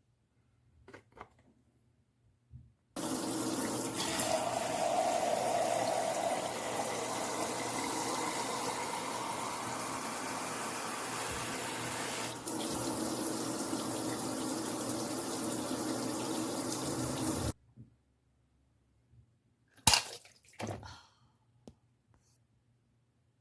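Water running steadily from a tap for about fifteen seconds, starting and stopping abruptly. Near the end come a sharp knock and a few lighter clunks.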